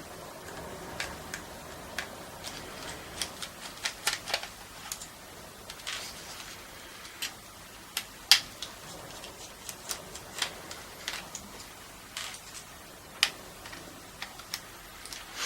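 Irregular light clicks and ticks from a small screwdriver working the tiny screws out of a car radio's circuit board, with a sharper click a little past halfway.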